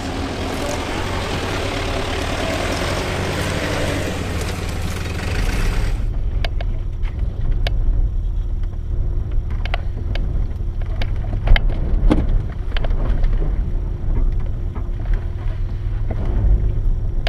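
A 4WD's V8 turbo-diesel engine running at low revs while crawling over a rough track. About six seconds in the sound changes abruptly from a broad hiss to a duller low rumble, with scattered knocks and rattles from the vehicle's body and suspension over the bumps.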